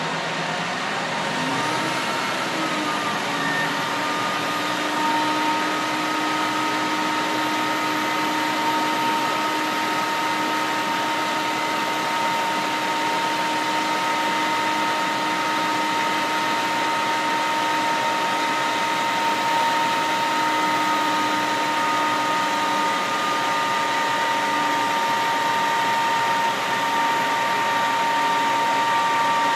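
Utility crane truck's engine and hydraulics running at raised speed: a steady mechanical drone with a whine that rises in pitch about two seconds in and then holds level.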